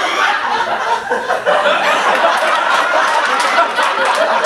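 Audience laughing, with a few sharp claps from about two seconds in.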